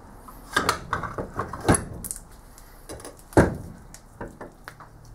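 Clunks, knocks and light rattles of a heavy metal casting being handled and set into a steel machine vise. Three sharp knocks stand out: about half a second in, at about a second and a half, and at about three and a half seconds.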